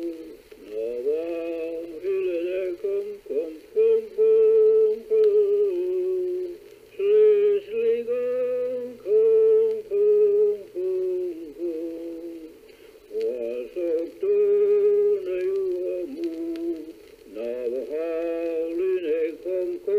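A single voice singing a Passamaquoddy song unaccompanied, in held, wavering phrases with short breaks between them. A faint steady low hum runs underneath.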